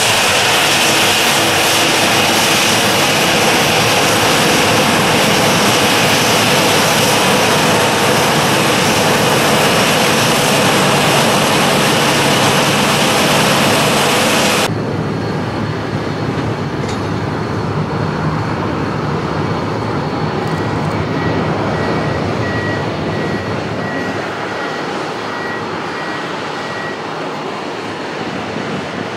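Jet engines of a Boeing 737 running at taxi power close by: a loud, steady hiss with a high whine. About halfway through, the sound cuts abruptly to the quieter, duller running of a taxiing Boeing 757's jet engines. Near the end a ground vehicle's reversing beeps repeat about one and a half times a second for several seconds.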